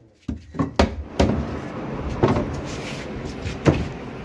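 Claw hammer driving nails into plywood stair formwork: three sharp blows within about the first second, then a couple of separate knocks on the board over a steady background noise.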